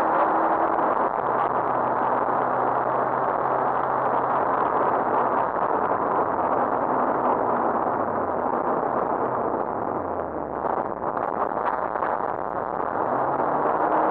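Rally car engine running hard at speed, heard from inside the cabin under loud road and wind noise. The engine note falls about eight to ten seconds in with a brief dip as the car slows, then climbs again near the end.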